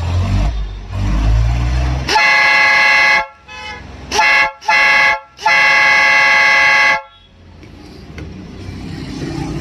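Five-trumpet 12-volt electric air horn sounding all five trumpets together, the part that sequences them having been taken out of its motor: after a low rumble for the first two seconds it gives four heavy blasts, about a second, two short ones, then one of about a second and a half.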